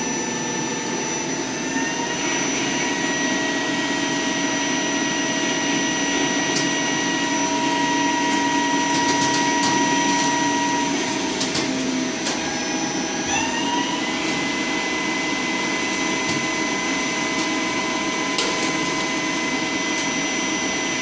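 CNC lathe running a turning cut: a steady mechanical whir with a spindle-drive whine whose pitch steps up about two seconds in, drops near eleven seconds and glides back up around thirteen to fourteen seconds. A few sharp ticks sound over it.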